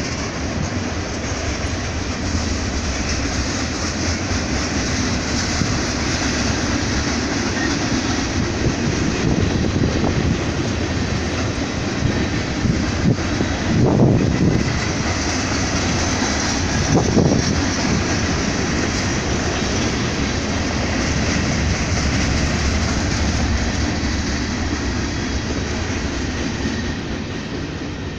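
Mixed freight train cars rolling past on the rails: a steady rumble and clatter of steel wheels, with two louder bursts of rattling about halfway through. The noise falls away near the end as the last car passes.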